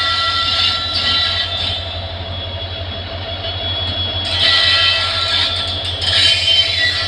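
Indian Railways diesel locomotive rolling past as the express arrives, its engine running with a steady low throb under the rumble of wheels on rail. Steady high squealing tones ride over it, and a hiss rises about four seconds in and again near the end.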